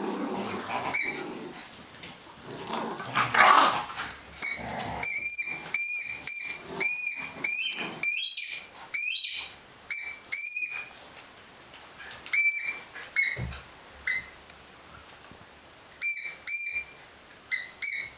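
A dog's squeaky ball squeaking over and over as it is chewed: runs of short, high squeaks of the same pitch, a few a second, starting a few seconds in, with a short break in the middle.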